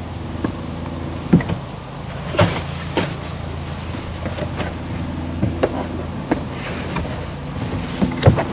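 Scattered knocks and taps of hard plastic as a moulded kayak seat is set into the cockpit of a plastic sectional kayak, over a steady low hum.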